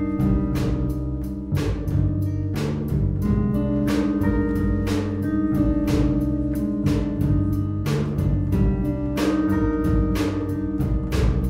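Small school jazz band playing: a drum kit keeps a steady beat with cymbal strokes, under an electric bass line and held melody notes.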